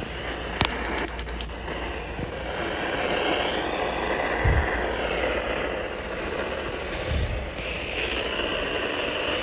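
Steady static hiss from a weather radio receiver. A quick run of clicks comes about a second in, and two low bumps follow later.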